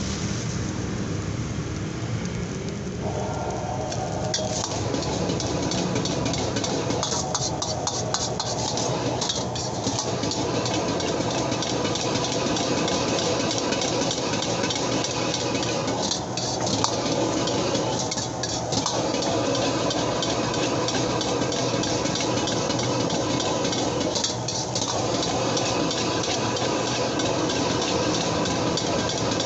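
Metal ladle scraping and clanking against a wok as fried rice and egg are stirred and tossed, the rice sizzling, over the steady rush of a high-flame gas wok burner. The ladle strokes come thick and fast from about four seconds in.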